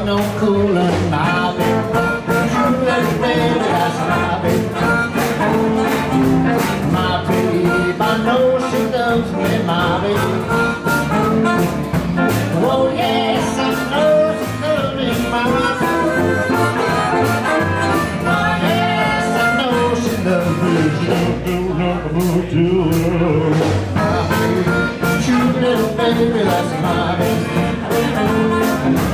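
Live blues band playing an upbeat number on electric and acoustic guitars, upright bass and harmonica.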